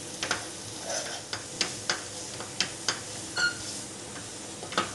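Steel slotted spoon stirring potatoes and gram flour in a non-stick frying pan, with irregular sharp taps and scrapes against the pan over a faint steady sizzle of the food roasting on a low flame.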